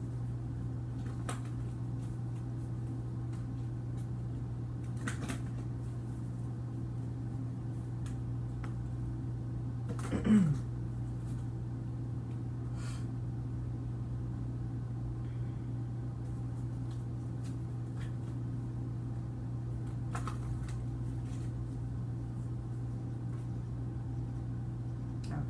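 Steady low electrical hum in a small room, with a few soft clicks from oracle cards being handled and laid out. About ten seconds in there is one louder short sound that slides down in pitch.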